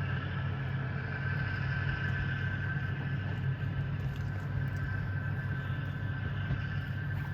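Diesel railcar engines of a two-car KiHa 200-series train running, a steady low drone with a higher whine over it.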